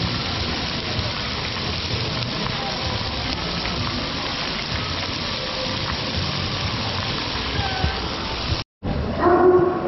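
Meat sizzling on a hot grill or griddle: a steady, even hiss. It breaks off abruptly near the end, and a different sound with a few steady pitches follows.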